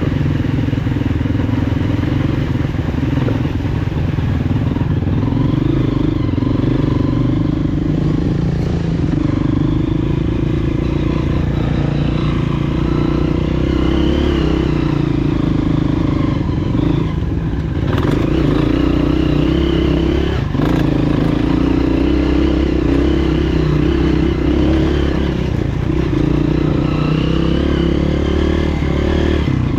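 Honda CRF230F dirt bike's single-cylinder four-stroke engine running, its revs rising and falling, with two sharp knocks a couple of seconds apart a little past halfway.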